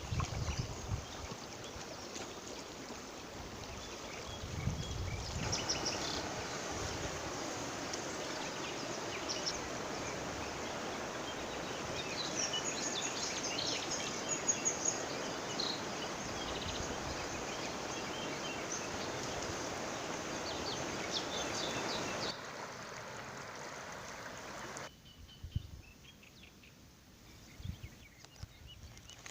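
Steady rush of flowing water, with small birds chirping high over it. The water sound drops away sharply near the end, leaving faint outdoor ambience.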